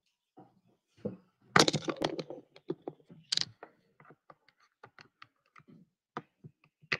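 Clatter and clicks of someone settling in at a laptop: a loud jumble of knocks about a second and a half in, then a string of short sharp clicks and taps like typing on the keyboard.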